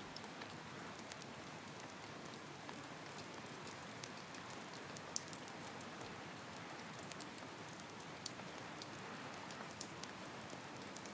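Steady rain, a soft even hiss with scattered sharp ticks.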